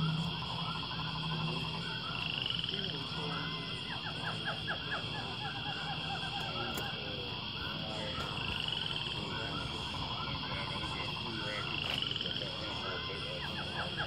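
Many small animal calls overlapping, chirps and short rapid trills, over a steady low hum.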